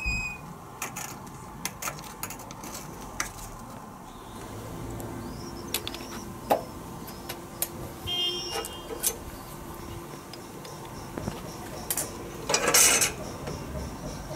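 Metal tools clinking and knocking: locking pliers, a hammer and a heated steel rebar striking and rattling against a steel bench top as the rod is handled and bent. A louder, longer scraping rasp comes a little before the end.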